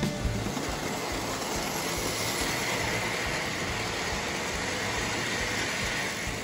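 Postwar Lionel O-gauge freight train, headed by a 1666 Prairie steam locomotive, running past on three-rail tubular metal track: a steady rolling rumble and whir of the cars' wheels on the rails.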